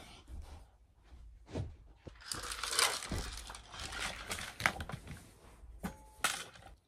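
Close rustling and crinkling as things are handled and moved right by the microphone, loudest in the middle, with a few sharp knocks.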